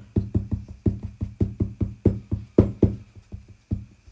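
An embossing dabber tapped repeatedly onto paper letters on a table, dull knocks at about four a second, slowing and thinning toward the end.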